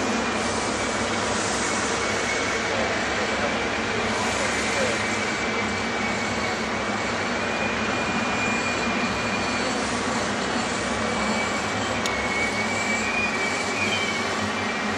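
Passenger train cars rolling slowly past on the rails: a steady rumble of wheels on track, with a faint high whine held through it.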